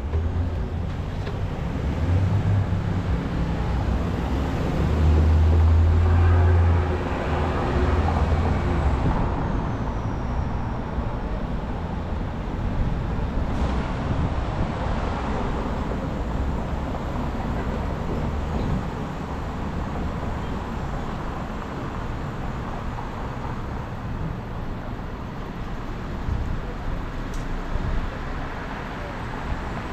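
Road traffic on a city street heard from a moving bicycle: a steady rumble of passing cars, with a louder vehicle going by about five to seven seconds in.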